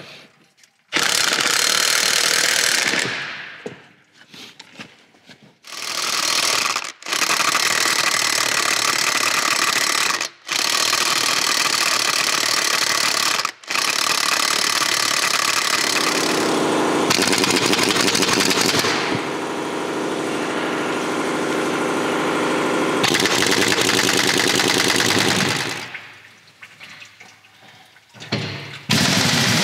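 Impact wrench hammering at the lug nuts of a Chevy C50 truck wheel. It runs in long bursts, one going for about ten seconds, with short breaks between them.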